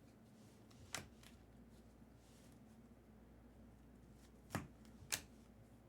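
Near silence with three short clicks from trading cards being handled: one about a second in, then two close together near the end.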